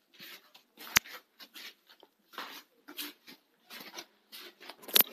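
Soft, irregular footsteps and shuffling on a hard floor, with a sharp click about a second in and another near the end.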